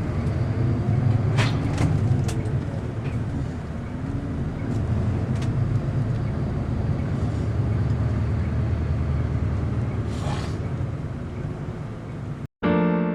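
A bus engine running steadily, heard from inside the cabin, with a few sharp clicks and knocks in the first couple of seconds and a short hiss about ten seconds in. Near the end it cuts off abruptly into electric piano music.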